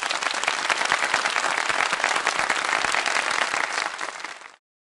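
Applause: many hands clapping densely together. It starts abruptly and cuts off suddenly shortly before the end.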